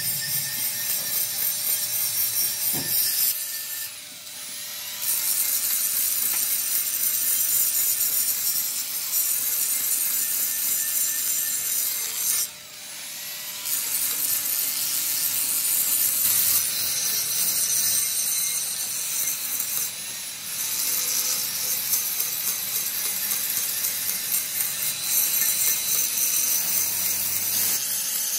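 Electric angle grinder with an abrasive disc grinding the outer surface of a cast-iron truck brake drum, a steady high-pitched hissing grind. The grinding drops away briefly three times before it starts again.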